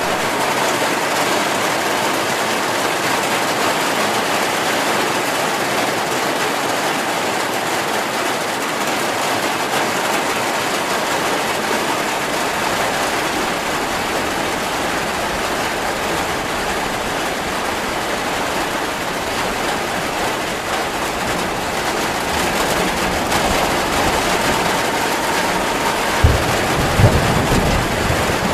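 Heavy rain pouring steadily, with a low rumble of thunder building from about halfway and a few louder thunder rolls near the end.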